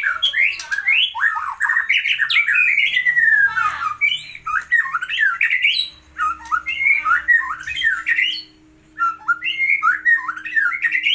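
White-rumped shama singing: a fast, varied run of gliding whistled phrases, breaking off briefly a little past halfway and again near the end.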